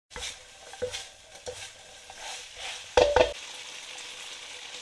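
Sauce-coated pork strips stirred and tossed in a nonstick wok with a silicone spatula: a low steady sizzle with scraping and a few knocks of spatula and pan. The loudest is a double knock about three seconds in.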